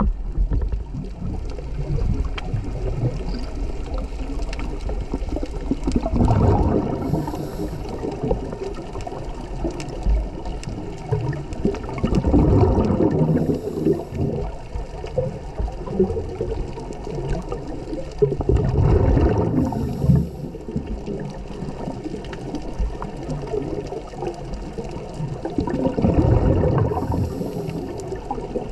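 Underwater sound of a scuba diver breathing through a regulator. Exhaled bubbles rush out in four swells about six to seven seconds apart, each with a short high hiss, over a steady wash of water.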